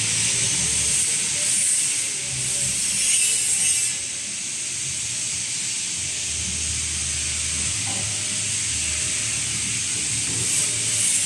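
A steel drum rolling along a roller conveyor, its rollers turning with a low, uneven rumble and rattle, over a steady hiss of machinery.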